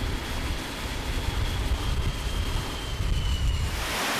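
Jet aircraft engine running: a deep rumble under a high, steady whine that dips slightly in pitch, cutting off abruptly near the end to a steady hiss.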